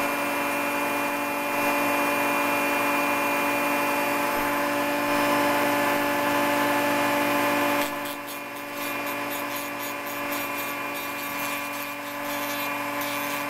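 Dremel rotary tool on its lowest speed spinning a coarse sanding drum, a steady motor whine. About eight seconds in the drum is pressed lightly onto a plastic puzzle piece: the whine gets quieter and a fast scratchy grinding joins it as excess weld putty is sanded down to the plastic.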